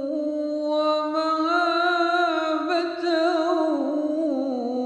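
A man chanting a sholawat, Arabic devotional praise of the Prophet, in slow melismatic style, holding long notes with wavering, ornamented pitch. A new word, 'wa mahābatan', begins about three seconds in.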